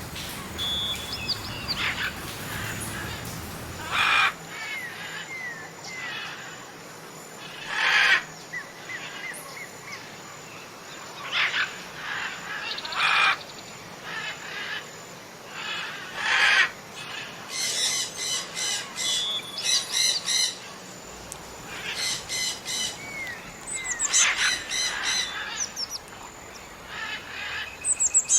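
Jungle birds calling: loud harsh squawks every few seconds, mixed with short whistled notes. In the second half come rapid chattering trills.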